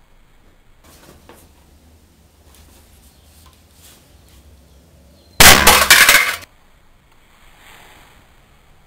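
Glass shattering in one sudden loud crash, with a cluster of sharp breaking and clinking impacts lasting about a second, some five seconds in. It is a target broken by a dart from a homemade compressed-air rifle.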